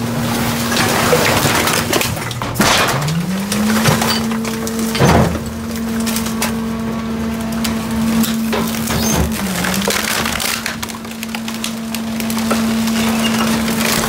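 Garbage truck's hydraulic compactor crushing wooden boards and wood-framed screens, with repeated cracking and splintering of wood. Underneath is the truck's steady machine hum, which sags and climbs back to pitch about three seconds in.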